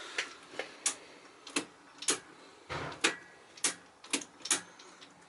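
About ten sharp clicks at uneven spacing, roughly two a second, from a newly wired brewery control panel being switched and tested.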